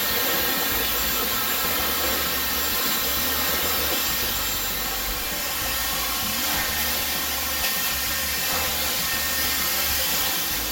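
Handheld hair dryer blowing steadily, a loud even rush of air over the hum of its motor, as hair is dried with a round brush.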